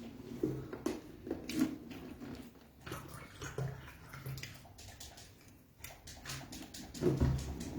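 Wet chewing and lip-smacking of a mouthful of beans and fried plantain: irregular squelches and small clicks, with a louder low thump near the end.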